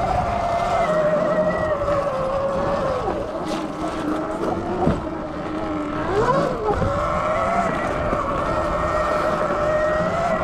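Sur Ron Light Bee X electric dirt bike's motor whining. The pitch drops as the bike slows about three seconds in, then climbs again as it speeds up a few seconds later. Low wind rumble on the chest-mounted camera's microphone runs under it.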